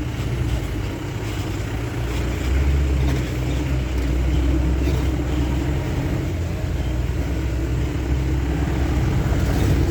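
Safari jeep's engine running steadily while driving along a forest track, with road noise, heard from inside the jeep.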